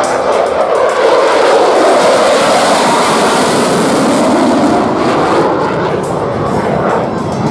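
F-16 Fighting Falcon jet engine roaring as the fighter flies low past overhead. The hiss is strongest in the middle and eases off about five seconds in as the jet moves away.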